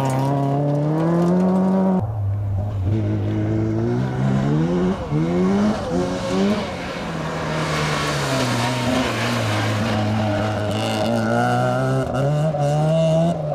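Rally car engines at full throttle on a gravel stage. First a small white rally car accelerates away with rising revs. About two seconds in it cuts to an Opel Astra rally car that comes closer, revving up and dropping back through quick gear changes, with a hiss of tyres and gravel, then pulls away.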